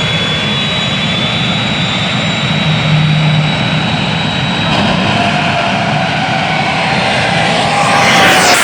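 Very loud drag-racing engine noise: a steady high whine over a dense rushing roar, swelling about three seconds in and growing louder near the end.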